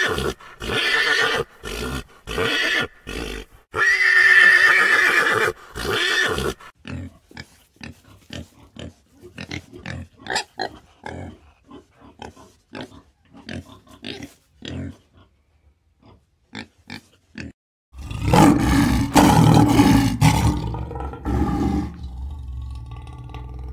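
A horse neighing in several loud, broken whinnies. Then pigs giving many short grunts and squeals, quieter and spaced apart. Then, about three-quarters of the way in, a lion roaring loud and deep, easing off near the end.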